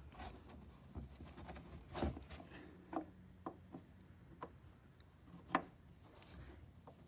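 Allen key turning a BMW's plastic sump plug: faint, irregular clicks as the plug's ratchet clicks over, about half a dozen, with soft handling noise.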